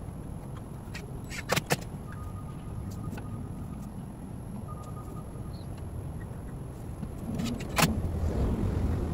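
Sharp clicks and knocks of a plastic fiber terminal box being handled and pressed onto a wooden pole: two close together about a second and a half in, another near the end. Under them a steady low rumble that grows louder for the last two seconds.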